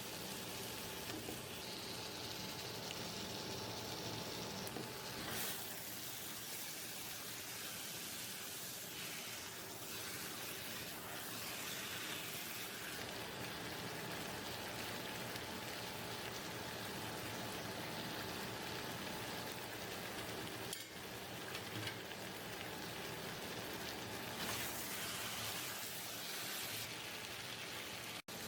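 Food frying in a pan: a steady sizzling hiss, changing abruptly a few times.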